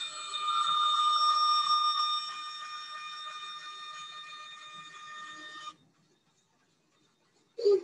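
Bandsaw cutting plywood: a steady high whine with the noise of the blade in the wood. It is loudest in the first couple of seconds, weakens, and cuts off abruptly about six seconds in. A short sound follows at the very end.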